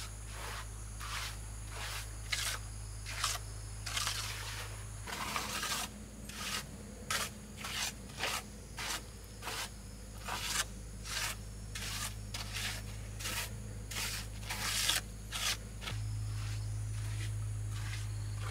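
Repeated short scraping strokes, about two a second, over a low steady hum.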